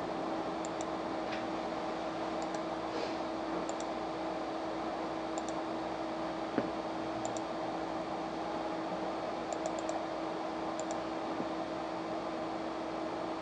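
Room tone: a steady hum over a faint hiss, with a few faint, scattered clicks from someone operating a computer.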